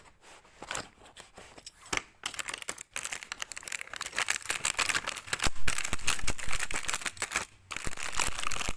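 Plastic packaging of a toy kitchen set crinkling and tearing as it is cut and pulled open: scattered crackles at first, becoming denser and louder from about halfway.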